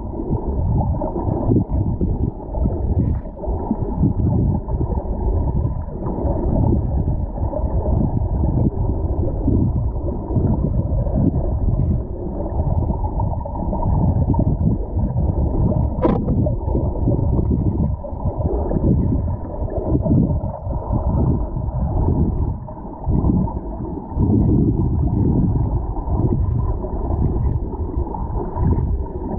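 Muffled, churning rumble of water moving around a camera held underwater, with a single sharp click about 16 seconds in.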